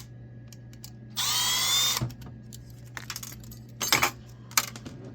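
Power drill spinning a screw out in one short run of just under a second, its whine rising as the motor speeds up. It is followed by small metal clicks and clinks of parts being handled, with sharper knocks just before four seconds and near four and a half seconds in.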